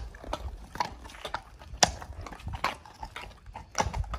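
Horse's hooves clopping on a concrete yard at a walk, irregular sharp knocks about every half second as the horse is led round.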